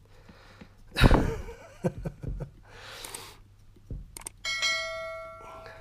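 Clicks and knocks from handling a plastic GoPro case and chin mount, the loudest about a second in. Near the end, two quick mouse clicks and then a ringing notification-bell chime lasting about a second: the sound effect of an on-screen subscribe-button animation.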